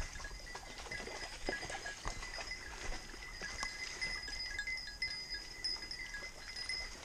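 Faint footsteps and rustling on loose stones and dry leaf litter, small scattered clicks, over a faint steady high ringing tone.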